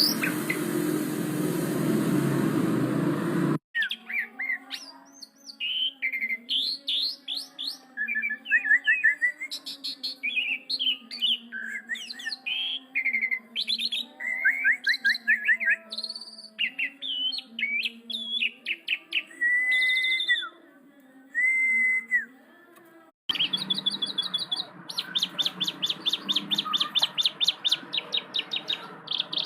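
Pied starling (jalak suren) song, a varied run of loud whistles, slurred notes and chatter. It is spliced from separate recordings: about three and a half seconds in, a loud noisy passage with rising glides cuts off abruptly into the song. About 23 seconds in, the song cuts to a rapid rattle of repeated high notes.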